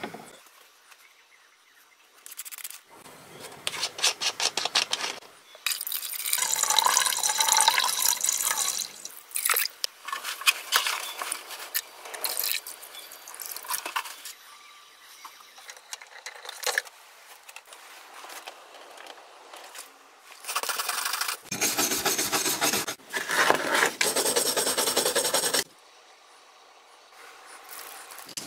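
Rubbing and crackling noise in irregular bursts, each lasting a second or a few seconds, with quieter gaps between.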